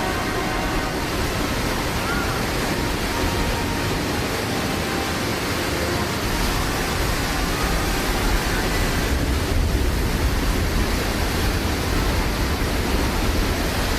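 Steady rushing of a large volume of water: the staged flash flood, thousands of gallons dumped from overhead tanks and shot through air cannons down a sculpted concrete canyon. A deep rumble under it grows stronger about six seconds in.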